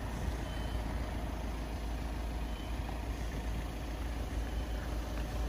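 An old Volvo truck's diesel engine idling with a steady low rumble.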